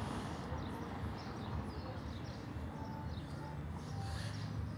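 Outdoor street ambience: faint, scattered bird chirps over a steady low rumble.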